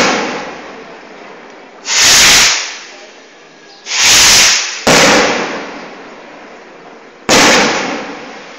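A string of loud firework bangs, one every one to two seconds, each trailing off in an echo. The loudest bangs overload the phone's microphone and sound distorted.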